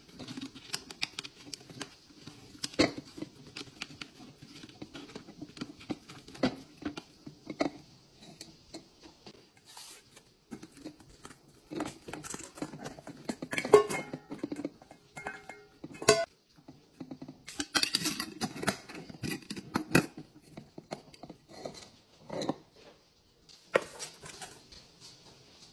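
Laundry detergent pods dropping into a glass jar: soft plastic thuds and clicks against the glass as they tumble onto the pile. There are two denser rushes, about halfway and about two-thirds of the way through, as handfuls are tipped in from a metal bowl.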